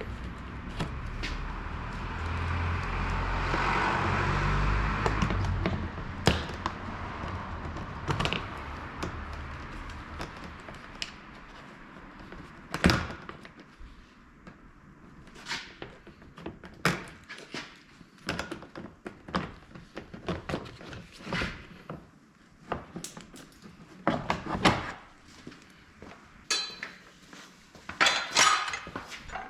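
Workshop work on a car's underside: a steady mechanical noise with a low rumble for the first several seconds, then a long run of separate knocks and clinks of tools and metal parts, the loudest a little under halfway through.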